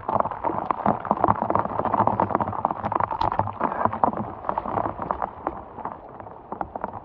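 Heavy rain falling, with a dense patter of close drops hitting near the microphone. It is loudest through the first few seconds and eases near the end.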